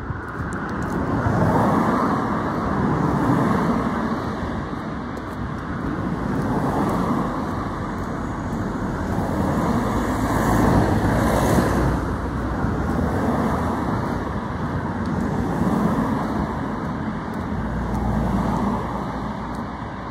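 Road traffic: cars passing close by one after another, the sound swelling and fading with each.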